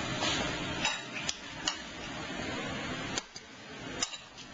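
Chopsticks clicking against a bowl: a few light, sharp clicks spread irregularly over a steady background noise.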